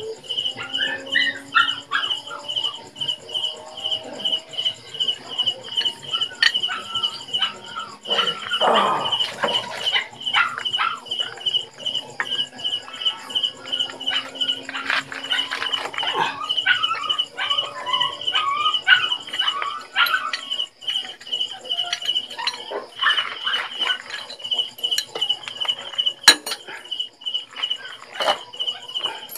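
Insect chirping in a steady high pulse, about three chirps a second, with a dog barking now and then and short metal clicks as hands fit the scooter's variator pulley and drive belt.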